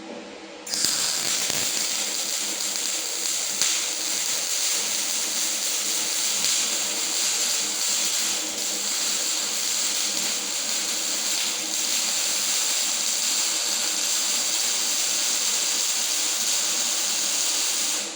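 Semi-automatic wire-feed (MIG) welder arc hissing and crackling steadily as a bead is laid. It strikes up sharply about a second in and stops abruptly near the end.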